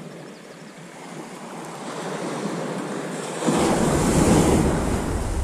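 Surf washing on a shingle beach. About three and a half seconds in it swells suddenly louder, with wind buffeting the microphone.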